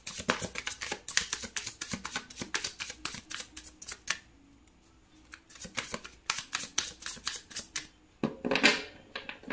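A tarot deck being shuffled by hand: quick runs of card clicks for about four seconds, a short pause, another run, then a brief swish of cards near the end.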